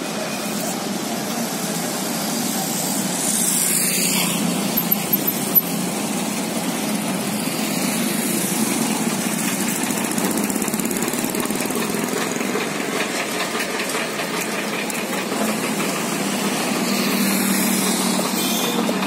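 Auto rickshaw engine running steadily at idle, with a few sharp clicks about five seconds in.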